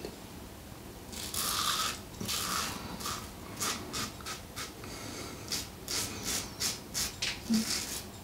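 Alpha Shaving Works Outlaw Evolution stainless steel double-edge safety razor scraping through lathered stubble on the upper lip and chin. There is a longer stroke about a second in, then quick short strokes at about three a second.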